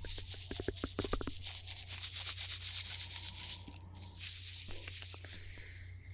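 Small popping-candy wrapper packets crinkled and rubbed between the fingers close to a microphone, a dense rapid crackle that thins out after about four seconds.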